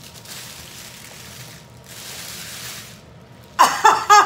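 Soft, even rustling, then near the end a few short, high-pitched excited squeals from a woman's voice.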